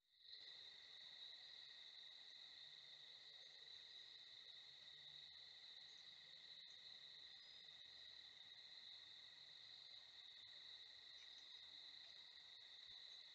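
Faint, steady chorus of crickets trilling: a continuous high-pitched drone with no break.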